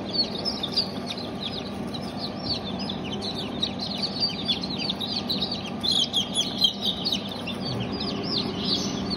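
A crowd of newly hatched chicks peeping together: a mix of Leghorn, Merawang and Barred Rock chicks. The calls are rapid, overlapping, high peeps that each fall in pitch, over a steady low hum.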